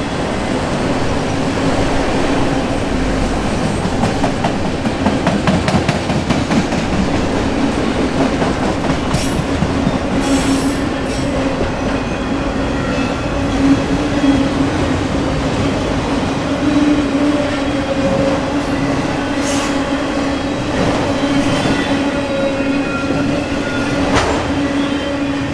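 Auto rack freight cars rolling past at close range: a loud, steady rumble of steel wheels on rail with clickety-clack over the joints. A steady droning tone runs underneath, and a few sharp metallic clanks or squeals come through now and then.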